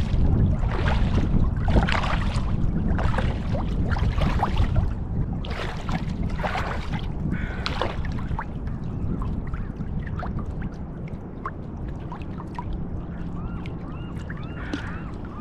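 Kayak paddle blades dipping and splashing in a steady rhythm, about one stroke a second, growing fainter in the second half. Wind rumbles on the microphone, strongest early on.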